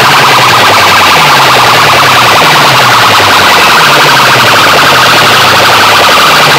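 Siren-like electronic alarm tone blasted at full volume through a bank of metal horn loudspeakers on a competition sound box, heavily distorted. Its wailing sweep repeats about once a second.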